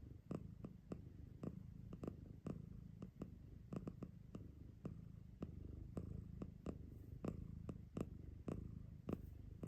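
A domestic cat purring steadily, a low continuous rumble, with soft irregular clicks scattered through it several times a second.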